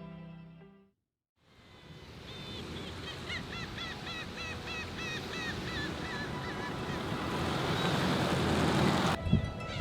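Surf washing onto a beach, a steady rushing that swells louder and cuts off abruptly near the end. A bird calls repeatedly in short, quick notes, about three a second, for several seconds starting about two seconds in. Background music fades out in the first second.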